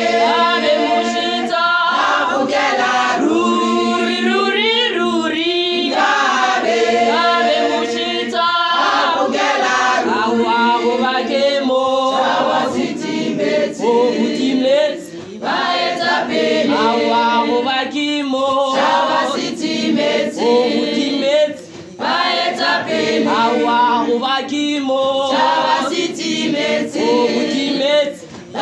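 Female choir singing unaccompanied in several voices, with short breaths between phrases.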